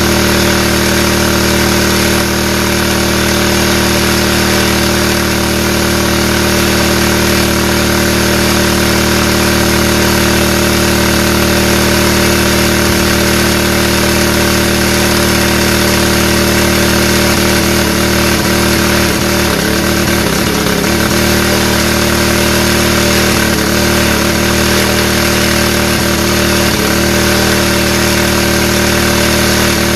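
Small engine of a portable power sprayer running steadily, driving the pump under load while water jets from the spray hose. Its pitch wavers briefly a little past halfway and again a few seconds later.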